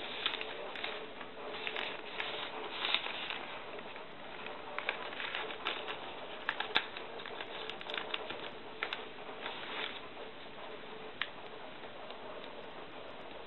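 Thin phonebook paper being folded and creased by hand: crinkling and rustling with sharp crackles, busiest over the first ten seconds, then only a few soft ticks.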